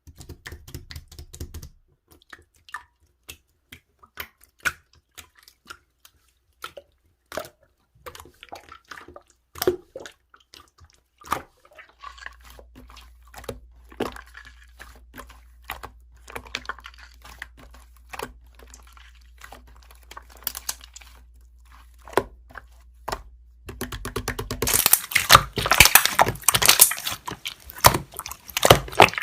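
Scattered sharp clicks and small wet pops that turn into loud, dense crackling about three-quarters of the way through.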